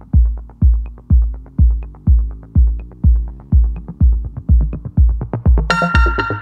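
Electronic background music with a steady kick drum about two beats a second and light hi-hat ticks; a bright synth chord comes in near the end.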